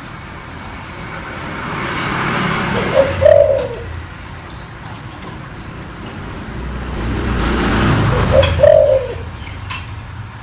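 Spotted dove cooing in a deep voice: two call phrases about five seconds apart, each led in by a swelling hiss.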